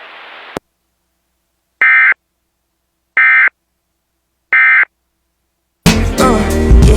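Emergency Alert System end-of-message signal broadcast on radio: three short buzzy data bursts about a second and a half apart, marking the end of the warning. Rock music from the station comes in near the end.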